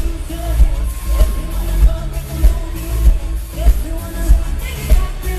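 Live pop music over a concert PA: a woman singing into a handheld microphone over a heavy bass beat that thumps a little under twice a second.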